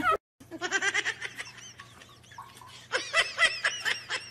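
Someone laughing in two bursts of quick breathy giggles, the first about half a second in and a louder one about three seconds in.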